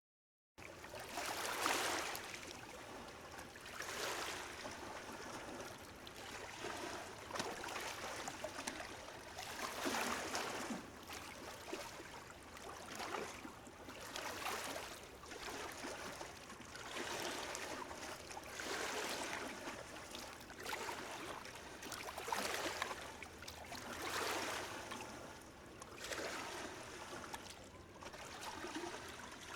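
Small, gentle sea waves lapping at the shore, a soft wash of water swelling and receding every two to three seconds.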